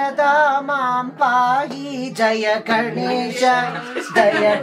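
A group singing a Hindu devotional song (bhajan) together, voices only.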